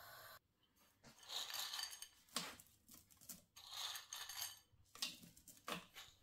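A wooden spatula scraping and stirring a dry, crumbly roasted flour-and-nut mixture in a nonstick frying pan, in a series of short scratchy strokes with a couple of sharp knocks, and raisins are tipped in from a bowl.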